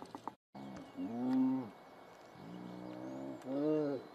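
Two drawn-out distress calls, each under a second, from a young prey animal being held down and suffocated by lions: one about a second in and one near the end.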